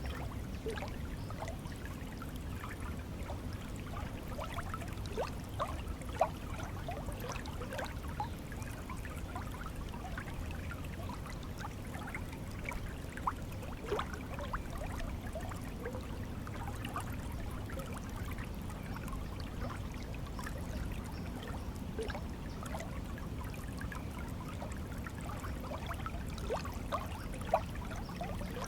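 Stream water flowing steadily, a low rush with many small bubbling plinks and trickles and a few louder splashes scattered through.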